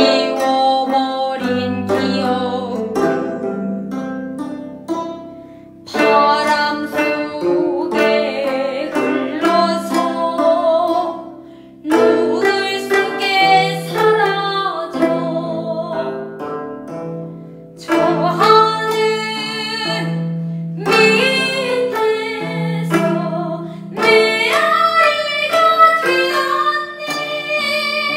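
Two gayageum, Korean plucked zithers, playing plucked and bent notes beneath a woman singing in Korean traditional sori style with a wavering vibrato. Her sung phrases begin about every six seconds.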